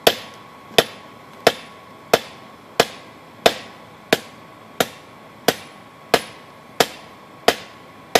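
Hand hammer forging hot steel from an old adjustable wrench on an anvil, drawing it out flat and tapered. Thirteen evenly spaced blows, about one and a half a second, each a sharp strike with a short ring.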